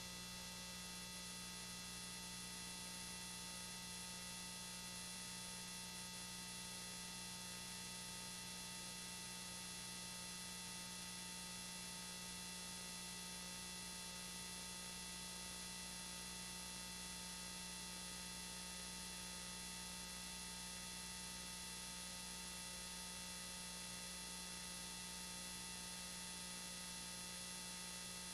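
Faint, steady electrical hum with a thin buzz of many high overtones over hiss, unchanging throughout: the kind of audio fault heard on an old home-video tape transfer.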